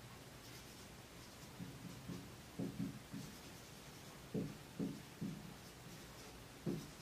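Marker pen writing on a whiteboard: faint squeaky strokes, with a few soft low bumps in between.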